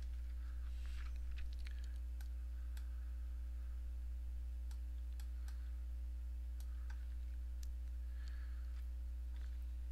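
Sparse, irregular clicks of a computer keyboard and mouse over a steady low electrical hum.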